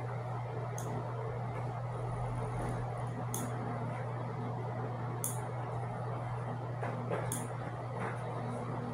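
Dog nail clippers snipping through a puppy's claws: four short, sharp clicks a couple of seconds apart, over a steady low hum.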